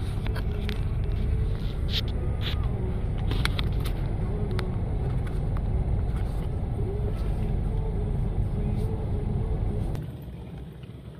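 Steady low rumble of a car's running engine heard from inside the cabin, with a few light clicks; the rumble drops away sharply about ten seconds in.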